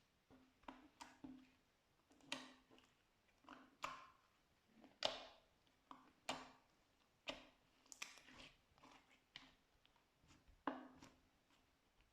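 Slime being pressed and worked by hand, giving a string of short, sticky pops and clicks at an irregular pace of about one or two a second.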